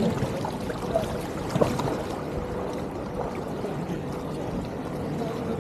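Shallow floodwater sloshing and swishing around legs as someone wades through a flooded street.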